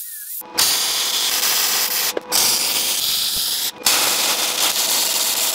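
Loud, harsh crackling hiss of power metalworking on steel tube, starting about half a second in and broken twice by abrupt cuts, about two and four seconds in.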